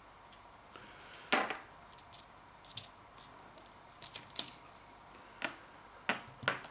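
Scattered handling noises from the cheese's plastic packaging: short crinkles and clicks, the loudest a brief rustle about a second and a half in, with a few more crackles near the end.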